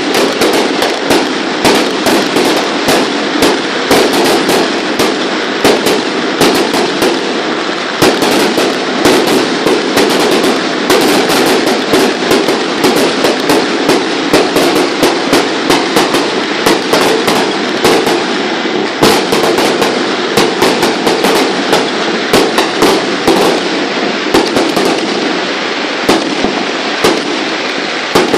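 Strings of firecrackers going off nonstop: a dense, rapid crackle of sharp pops.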